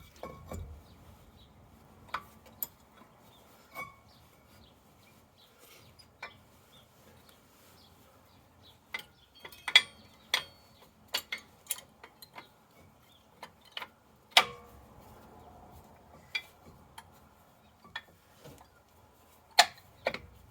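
Scattered metallic clicks, clinks and knocks of tools and brake parts being handled during front brake disc and pad work, irregular and separate, with a few sharper knocks standing out.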